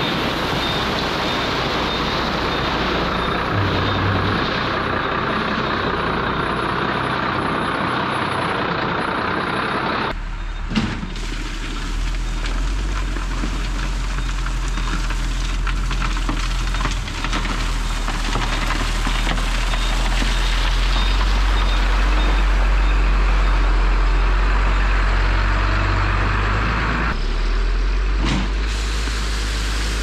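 Dump truck running under way, a loud continuous mechanical noise. About ten seconds in the sound changes suddenly to a deeper, heavier low rumble, which shifts again near the end.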